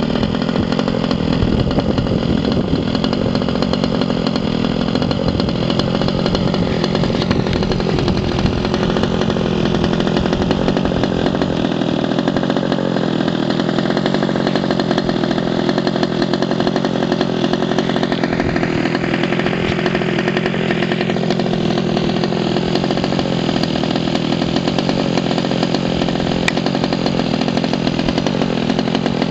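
Small two-stroke petrol engine of an FG Leopard 1:6-scale RC car running steadily with a buzzing note, revving up briefly about two-thirds of the way through.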